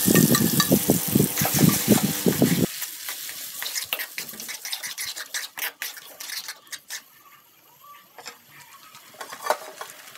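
Crushed tomatoes sizzling in hot oil in an aluminium kadai while a metal spoon scrapes them off a bowl and a spatula stirs, with many clicks and scrapes against the pan. About three seconds in it drops to a quieter sizzle with occasional scrapes as the tomatoes sauté.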